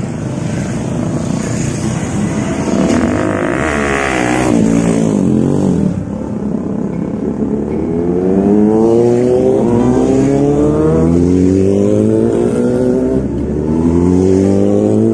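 A group of sport motorcycles riding past one after another. About four seconds in, one passes close with a pitch that rises and then drops, and from about eight seconds on the engines rev up again and again as the bikes accelerate.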